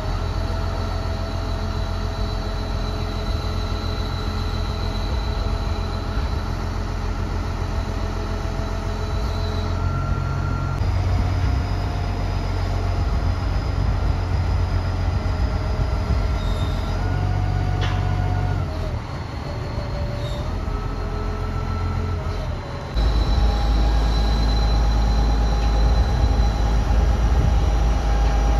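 A 60-ton barge-mounted crane's engine running under load as it lifts a roughly 20,000-pound cabin cruiser in slings. It is a steady low drone with whining tones that shift up and down in pitch several times, and the drone gets louder and deeper about 23 seconds in.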